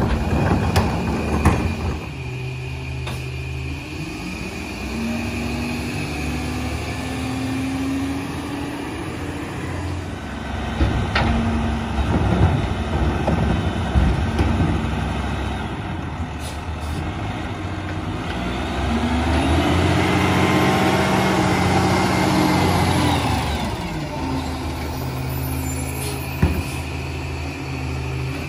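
Peterbilt 348 rear-load garbage truck's diesel engine running, speeding up and holding high twice and then dropping back, as it does when driving the EZ-Pack Goliath packer. A few sharp metal knocks come in between.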